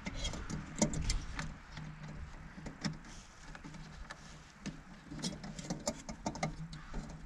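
Scattered small clicks and rattles of hands handling headlamp parts: a halogen bulb, its holder and wiring connector. A low steady hum runs underneath.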